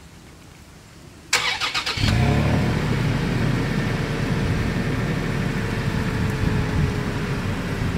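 2020 Toyota 4Runner's 4.0-litre V6 being started: the starter cranks briefly about a second in, then the engine catches and settles into a steady idle, heard at the single exhaust outlet.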